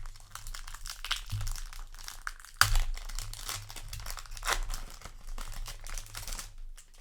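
Foil trading-card booster pack crinkling as it is handled and torn open, with a sharp crackle about two and a half seconds in.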